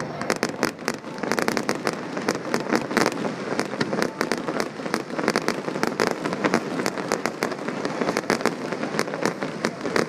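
Fireworks going off in quick succession: a dense, continuous run of sharp bangs and crackling pops, several a second.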